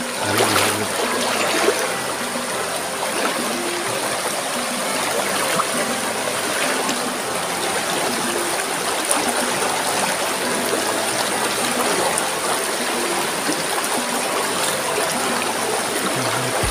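Fast-flowing rocky stream running over rapids: a steady rush of water, a little louder in the first two seconds.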